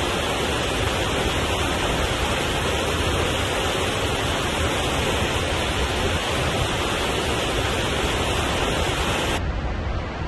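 Mountain waterfall pouring over rocks into a stream: a loud, steady rush of falling white water. About nine seconds in, the hiss of the sound thins and it begins to fade.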